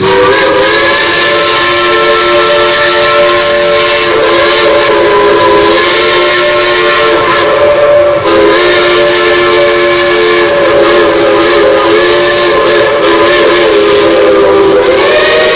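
Steam whistles on Lima Shay geared locomotives blowing a long, loud held chord of several tones over a steady hiss of steam. There is a short break about eight seconds in, and the tones shift in pitch near the end.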